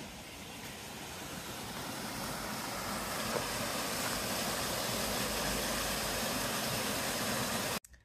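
Mountain stream cascading down a small rocky waterfall: a steady rush of water that grows gradually louder and cuts off suddenly near the end.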